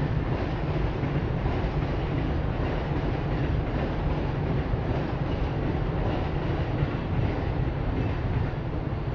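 Steady low rumble of city traffic at a busy crossing, an even wash of noise that holds throughout without breaks.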